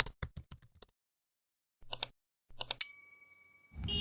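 Rapid typewriter key clicks that stop about a second in, two more short bursts of clicks, then a single bell ding that rings out for about a second. A low rumble starts just at the end.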